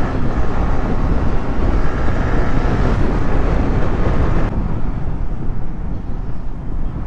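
Wind rushing over the microphone of a Yamaha R15 V3 motorcycle rider at speed, with the bike's engine and road noise under it. About four and a half seconds in, the sound abruptly turns duller and lower.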